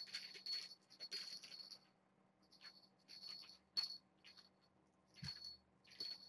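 Small jingle bell in a cat toy rattling in a series of short, irregular shakes, with a soft thump about five seconds in.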